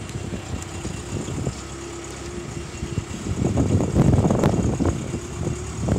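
The lifting crane's engine runs steadily with a held whine. It grows louder with a few knocks from about three to five seconds in, as the boat engine hangs swinging from the hoist chains.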